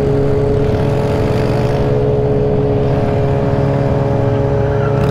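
Suzuki GSX-R sportbike's engine heard from on board, running at a steady, unchanging pitch as the bike cruises.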